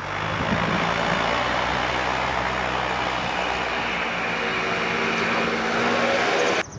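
Motor vehicle engine running steadily, with a hiss of road noise over it; it cuts off suddenly near the end.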